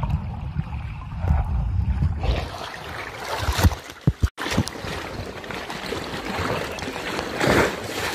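Muffled underwater rumble of water around a submerged camera, changing about two seconds in to the brighter sound of water sloshing and splashing at the surface, with a brief drop-out a little after four seconds.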